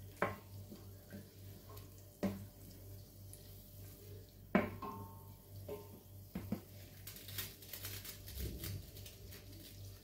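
Wooden spatula knocking and scraping against a stainless steel pot while stirring melting margarine, in a few separate sharp knocks, over a steady low hum.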